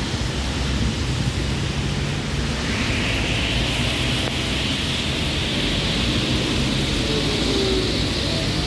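V3A-93-M2000 articulated tram rolling in and slowing to a stop on wet rails, heard over a steady hiss of rain and wet-road traffic. A higher hiss sets in about three seconds in as the tram draws near.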